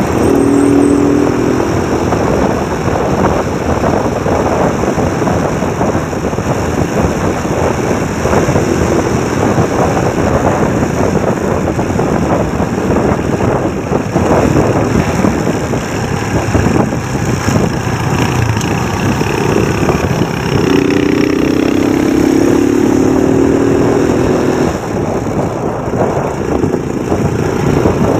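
Motorcycle ride through traffic: the engine runs under heavy wind and road noise on the microphone. A steadier engine note stands out briefly at the start, then again for about four seconds just past twenty seconds in, rising slightly in pitch.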